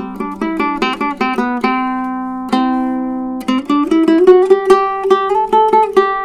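Koa and redwood tenor ukulele played with a pick, unamplified: quick single notes, two notes left to ring for about a second each midway, then fast repeated picked notes over a held lower note.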